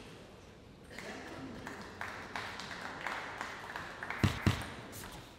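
Light applause in a large indoor hall between table tennis rallies, then two sharp knocks about a quarter of a second apart near the end.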